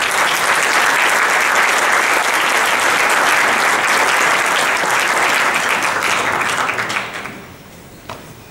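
Audience applauding steadily, dying away about seven seconds in, followed by a couple of short knocks.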